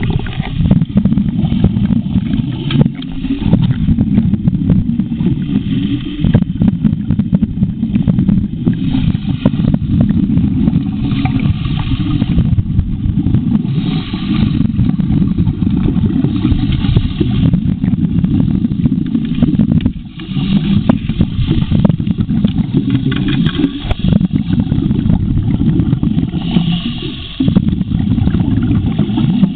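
Underwater sound of a gold dredge at work: the steady low rumble of the dredge's engine and pump carried through the water, with many small clicks of gravel and stones being sucked into the suction hose. A rush of the diver's exhaled breath bubbles comes every few seconds.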